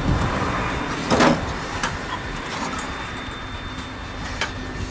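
Steel flat bar levering against the thin sheet-metal edge of a 1963 VW Beetle decklid, prying the panel up into line for welding: a short metallic clatter about a second in, then a few lighter clicks of metal on metal.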